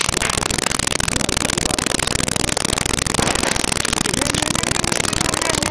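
Burning trolleybus: a dense, unbroken crackling of fire, steady in level throughout.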